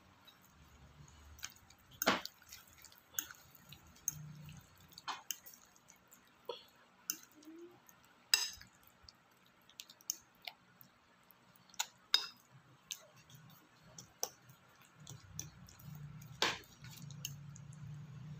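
Wet squishing of raw meat pieces being mixed by hand in thick white batter, with sharp clinks of a metal spoon against the glass bowl, irregular and a second or more apart.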